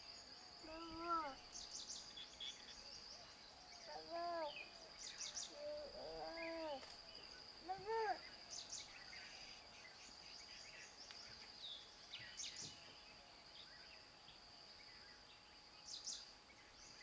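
Faint forest ambience: a steady high-pitched insect drone, with short arching bird calls four times in the first eight seconds and quick bursts of high chirps every few seconds.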